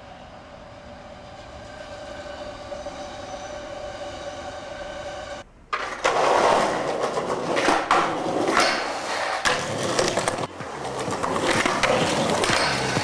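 Skateboard on concrete: wheels rolling, with sharp tail pops, board clacks and landings, and a grind along a ledge. Before it, for about five seconds, a steady hum of several held tones grows slowly louder and then cuts off abruptly.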